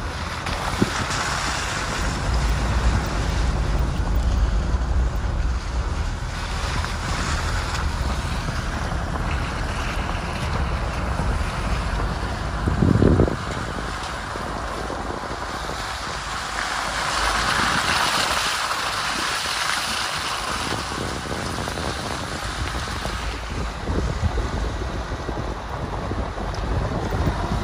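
Off-road 4x4 running over rough ground, its engine steady under wind buffeting the microphone, with one heavy thump about halfway through.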